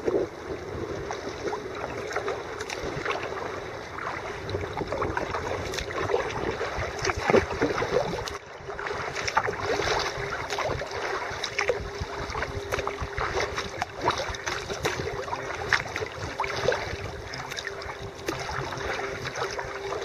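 Water splashing and rushing around a kayak on a fast-flowing flooded river. Paddle strokes and small splashes come continually over the moving water.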